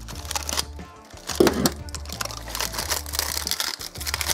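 Foil and plastic packaging crackling and crinkling as a new moped cylinder kit is cut open with scissors and unwrapped. A brief louder bump comes about a second and a half in.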